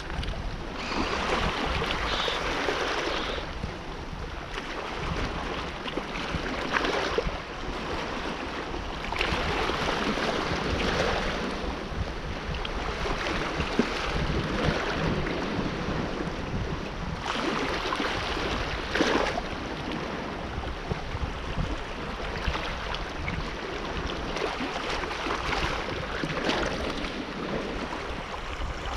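Black Sea waves breaking and washing, swelling and easing every few seconds with the odd sharper splash.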